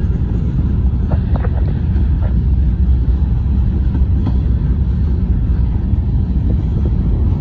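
Freight train of CSX covered hopper cars rolling past: a loud, steady low rumble of wheels on the rails.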